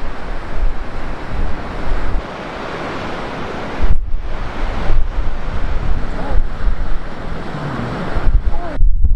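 Rough sea surf washing and breaking against a rocky shore, with strong wind buffeting the microphone. The sound breaks off and starts again about four seconds in.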